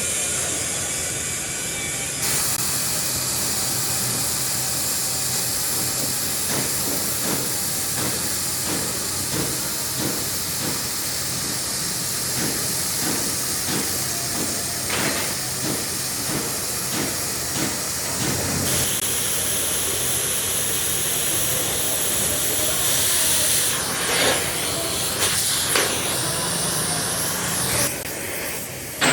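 Loud steady hiss over a low hum, typical of compressed-air work in a workshop. The hiss changes level twice. A run of regular knocks, about one and a half a second, sounds through the middle.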